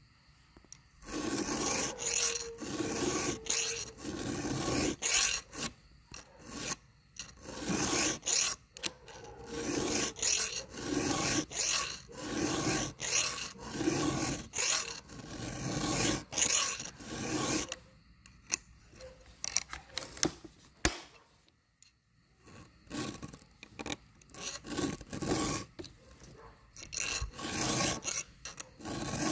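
Round chainsaw file rasping across the cutter teeth of a saw chain, sharpening them to a thin edge: repeated strokes about one a second, with a pause of a few seconds about two-thirds of the way through.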